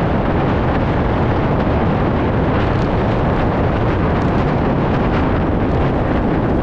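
Heavy wind buffeting the microphone during a fast bicycle descent: a loud, steady rush of noise, heaviest in the low end.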